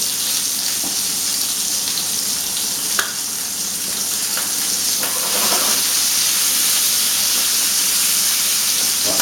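Chicken pieces sizzling steadily in hot oil in a stainless steel pan as the skin crisps, with one brief click about three seconds in.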